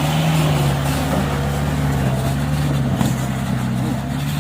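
Diesel truck engine running at steady revs under load, with a slight drop in pitch about a second and a half in.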